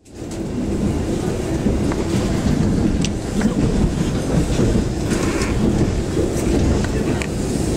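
Inside a moving passenger train carriage: the steady rumble of the coach running along the track, with the occasional click of the wheels over rail joints. It fades in quickly at the start.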